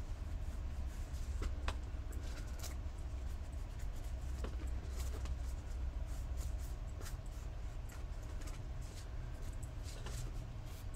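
Faint, irregular light taps and rubbing from small-scale craft work by hand at a table, over a steady low hum.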